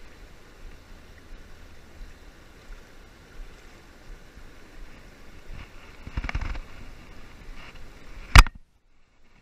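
Steady rushing of river water spilling over a low dam, with a brief low rumble a little past halfway. Near the end a single sharp, loud click, after which the sound cuts out almost completely for about a second.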